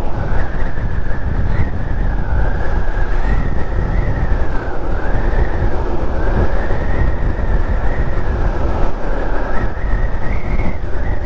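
Wind buffeting the microphone and tyre and road noise from a Zero SR/S electric motorcycle at road speed: a loud, steady rush heaviest in the low end, with no engine note.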